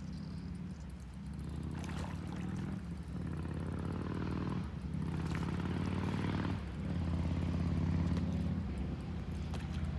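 A motor running with a low, steady hum that dips briefly a few times.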